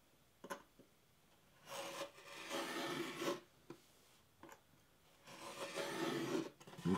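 X-Acto knife blade scoring through painter's tape on a wooden barn-quilt board: a light tap about half a second in, then two rasping cutting strokes, the second near the end.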